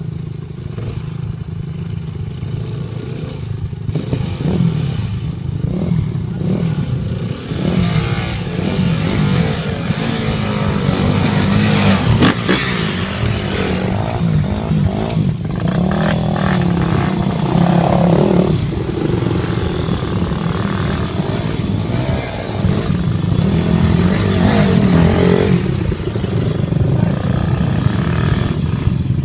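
Enduro dirt bike engines running and revving under load on a steep climb, the revs rising and falling repeatedly and louder in the second half.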